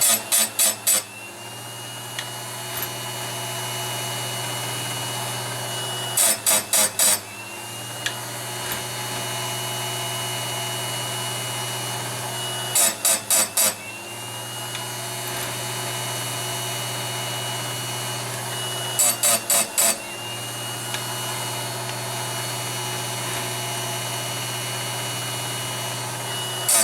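Small electric chainsaw-chain grinder running steadily, its grinding wheel dabbed onto a tooth in four or five quick, loud touches about every six seconds, one tooth after another. The short dabs keep heat from building up in the tooth, and the motor's whine rises back to speed after each set.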